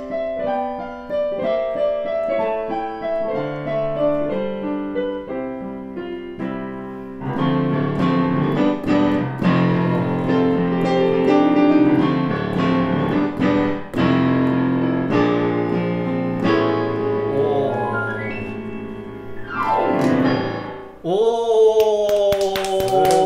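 Yamaha digital piano playing a short piece: a melody in single notes at first, then fuller chords from about seven seconds in, with a fast downward glissando near the end. The piece ends in exclaiming voices and clapping.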